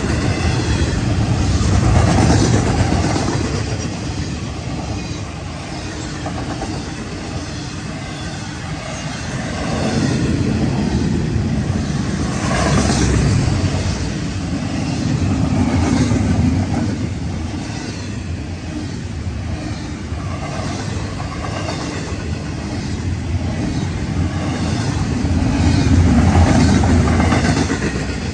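Florida East Coast Railway intermodal freight train's trailer flatcars and double-stack container cars rolling past at speed: a steady rumble and rattle with wheel clicks over the rail joints, swelling and easing as groups of cars go by.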